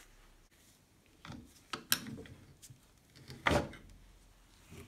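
A handful of short knocks and clicks as an angle grinder is handled on a wooden workbench and its metal gear head is pried away from the motor housing with a flat tool. The loudest knock comes about three and a half seconds in.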